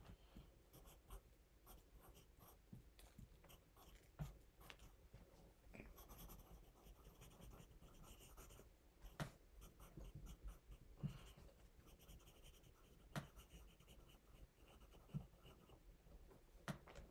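Faint pencil writing on paper: soft, uneven scratching with a few scattered light clicks and taps.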